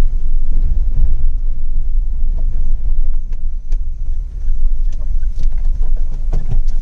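Steady low rumble of a car in motion, heard from inside, with a few light knocks and rattles.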